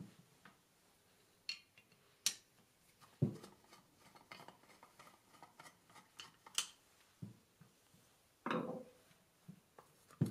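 Faint, scattered metal clicks and taps as a hex key works out the small screws holding a cover on a mini mill's head and the screws are set down on the bench. A duller knock comes about three seconds in, and a short scrape of handling near the end.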